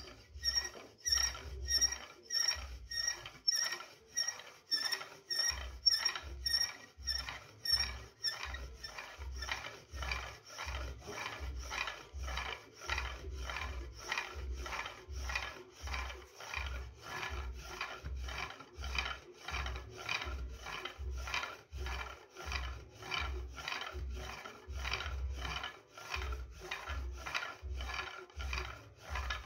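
A pump drill making friction fire: the wooden spindle grinds into a soft mulungu hearth board in an even rhythm of about two strokes a second, each stroke with a dull low thump. For the first eight seconds or so each stroke also gives a sharp squeak, then the sound settles into a smoother grinding.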